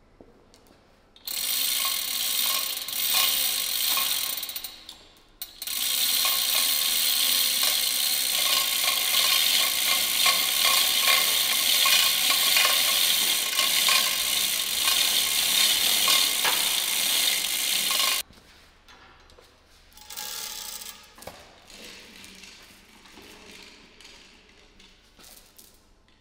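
Manual chain hoist being hauled up: the chain rattling through the block with rapid ratchet-pawl clicking as it lifts a heavy steel plate. It goes in a short run of a few seconds, then a long run of about twelve seconds that stops abruptly, followed by softer scattered chain clinks.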